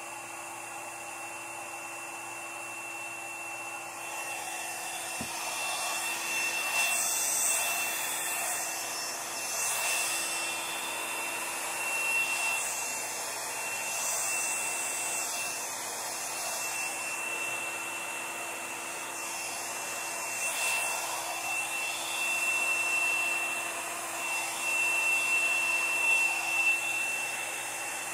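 Handheld hair dryer running steadily, blowing wet acrylic pour paint across a canvas. Its steady whine and rush of air grow louder about four seconds in, then swell and fade as it is moved over the paint.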